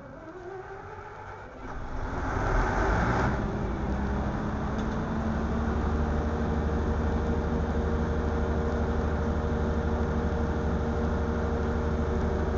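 Large diesel generator set starting: the starter cranks for under two seconds, the engine fires about two seconds in with a brief loud surge, then settles into a steady run with a constant hum.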